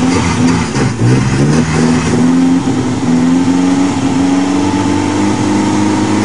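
1961 Ford Anglia's small four-cylinder engine pulling the car along at low speed, its pitch rising about a second in and then climbing slowly as the car gathers speed.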